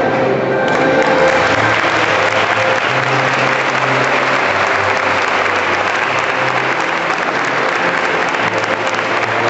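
Audience clapping steadily, growing fuller about a second in, with music still playing faintly underneath.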